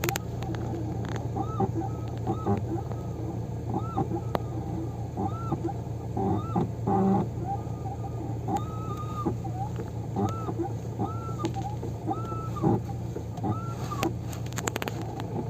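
Hyundai Getz clutch squeaking over and over, a short squeak that rises and falls in pitch about every half second to second, over a steady low hum. It is the dry-sounding clutch squeak that WD-40 is meant to cure.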